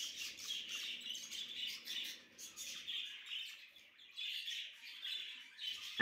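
Budgerigars chattering: many quick, overlapping high chirps, fairly faint.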